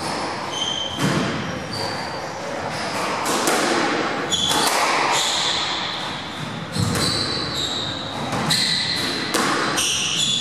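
Squash rally: sharp smacks of the ball off rackets and the court walls every second or so, mixed with short high squeaks of the players' shoes on the wooden court floor, echoing in the enclosed court.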